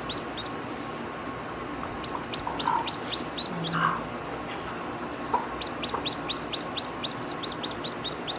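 Chickens clucking and calling, with runs of quick, high, falling chirps repeating several times a second.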